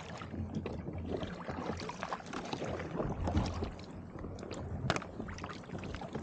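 Sea kayak moving through brash ice: many small ice chunks knock and scrape against the hull amid water sloshing, with one sharper knock about five seconds in.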